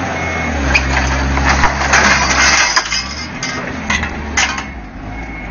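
An office desk being smashed up: sharp cracks, clinks and a longer crunching of breaking pieces, over the steady hum of a running engine.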